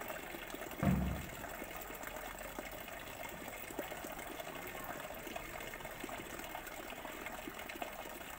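Steady, hushed murmur and shuffling of a large crowd waiting outdoors, with one brief low thump about a second in.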